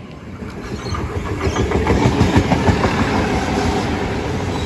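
Passenger train running past close by, its wheels clattering rapidly over the rail joints. It grows louder over the first couple of seconds, then holds steady.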